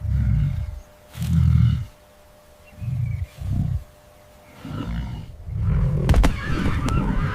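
Leopard growling: a series of short, deep growls, then a longer, rougher snarling stretch with a couple of sharp snaps about six seconds in.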